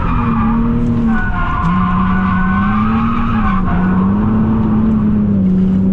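Car engine held at high revs in third gear through a drift, its pitch dipping briefly twice and climbing back, with tyre squeal above it.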